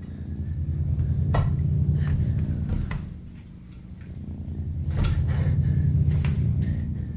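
Animated-film sound design: a low rumbling drone swells up, dies down about halfway through and swells again, with a few sharp clicks or knocks over it.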